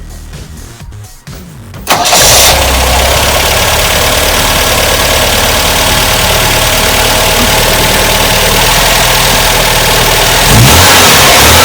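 Background music, then about two seconds in the MGB's 1.8-litre B-series four-cylinder engine starts and keeps running steadily, a little louder near the end.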